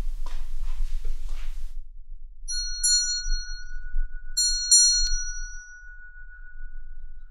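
A rustling noise for about the first second and a half, then a small hand bell struck in two quick pairs about two seconds apart. Its clear, high single tone rings on and fades slowly.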